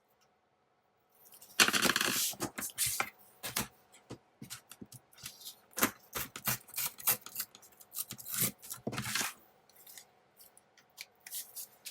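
Scissors snipping through paper in a run of short, irregular cuts, with paper rustling as it is handled.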